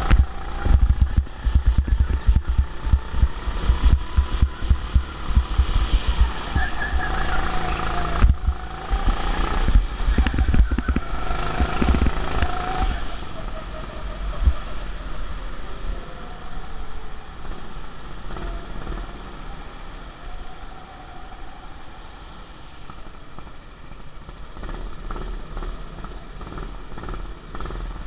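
Go-kart driven around a track, its motor pitch rising and falling with throttle through the corners. Heavy low rumbling thumps through the first half ease off after about thirteen seconds.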